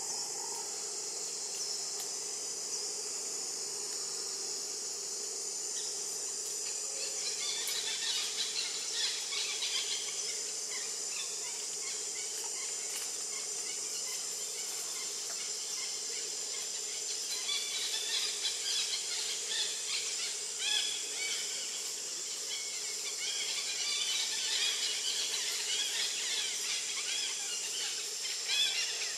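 Baby long-tailed macaque squealing in quick, high, arching squeaks, starting about a quarter of the way in, pausing in the middle, then going on again to the end, over a steady high drone of insects.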